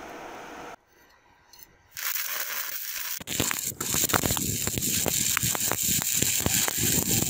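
Stick (shielded metal arc) welding arc crackling and sizzling with dense sharp pops as a coated electrode burns onto steel. It starts about two seconds in and grows louder and busier about three seconds in.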